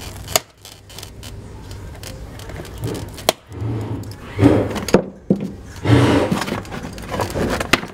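A few sharp clicks and knocks with some scraping, from hands working on decorative parts of a festival float.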